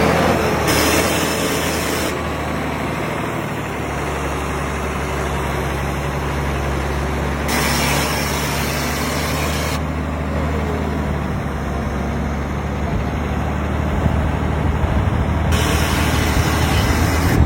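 Heavy 6x6 off-road truck engine running steadily with a low hum, with three bursts of hiss about a second in, around eight seconds in and near the end.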